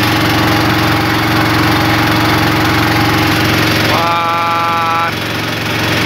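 A small boat's engine running steadily, a constant loud hum. About four seconds in, a steady held tone sounds over it for about a second.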